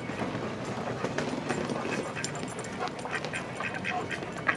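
Ducks quacking in short, irregular calls.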